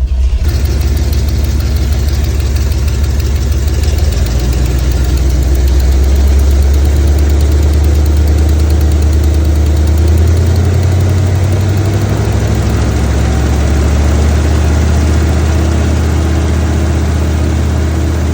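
Car engine idling steadily, with the noise of an exhaust leak in its running.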